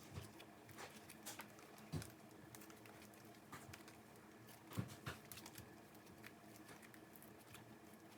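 Jelly slime being stretched and folded by hand to inflate it: faint scattered clicks and small bubble pops, with a few louder pops about two seconds in and near five seconds.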